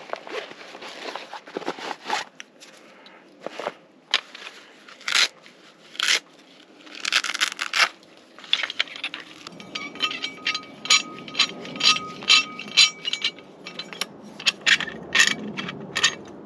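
Titanium multitool camp shovel being handled and fitted together: metal scraping and clinks, then from about ten seconds in a run of quick sharp clicks, two or three a second.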